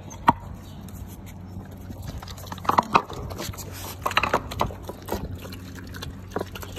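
Husky puppies eating soft, mushy food from a terracotta bowl: irregular wet smacking and chewing, with sharp clicks now and then.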